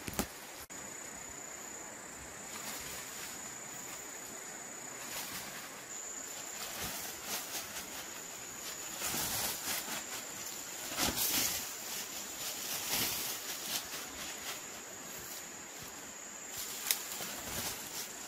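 A steady high-pitched insect trill runs under rustling and crackling of dry brush and leaves as someone pushes through undergrowth. The rustling comes in spells and is loudest about halfway through.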